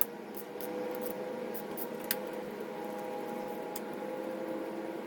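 Hand ratchet clicking in short runs as a 5/16 socket backs out the oil filter cover bolts on a Kawasaki KX450F, over a steady low hum.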